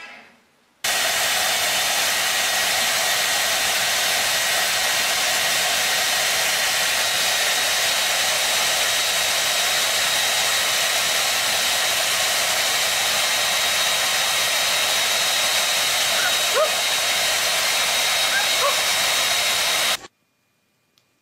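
Handheld hair dryer blowing steadily: a loud, even rush of air with a thin whine in it. It starts abruptly about a second in and cuts off just before the end.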